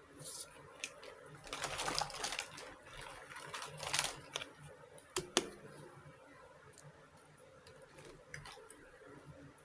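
Small toy kitchen pieces being handled: scattered light clicks and taps, with two longer noisy swishes about two and four seconds in and two sharp clicks a little after five seconds.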